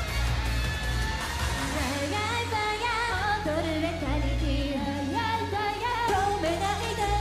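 Japanese idol pop song: women singing over a pop backing track with a heavy bass line, the vocals coming in about two seconds in.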